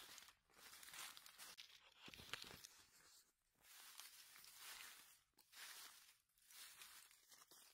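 Faint rustling and crackling of dry fallen oak leaves, stirred by a gloved hand reaching in to pick chanterelle mushrooms, in irregular spells with brief pauses.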